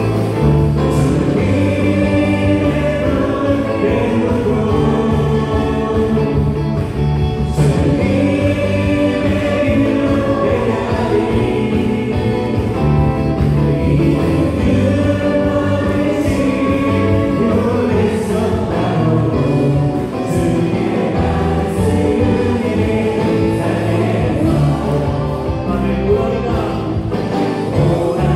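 A church praise band playing a gospel worship song, with a group of singers over a Yamaha Montage 8 keyboard, electric bass and drums.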